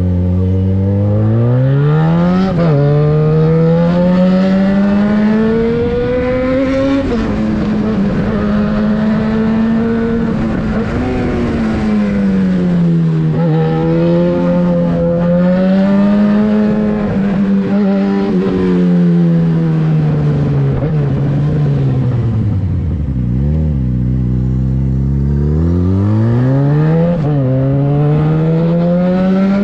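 Yamaha XJ6's inline-four engine through a LeoVince exhaust with the dB-killer removed, under way. The revs climb and drop sharply at several gear changes, fall to low revs late on, then pull up again.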